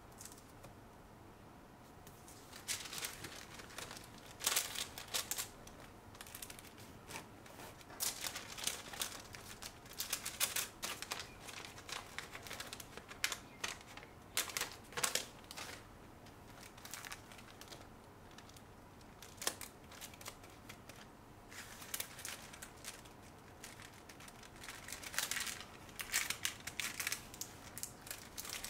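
Thin translucent wrapping paper rustling and crinkling in irregular bursts as hands fold it around a parcel, starting a couple of seconds in.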